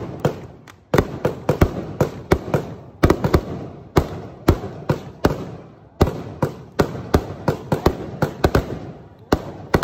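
Aerial fireworks bursting in a rapid, irregular string of sharp bangs, several a second.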